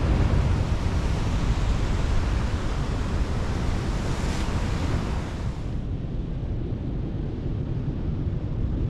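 Wind buffeting the microphone over the steady wash of sea surf on rocks, a rough rumbling noise heaviest in the low end. About six seconds in, the higher hiss falls away.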